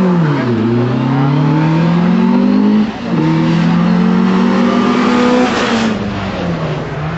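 VW Polo 6N 1.4 16V four-cylinder engine accelerating hard from the start, rising steadily in pitch. There is a sudden dip about three seconds in at a gear change, then it climbs again before easing off and fading near the end.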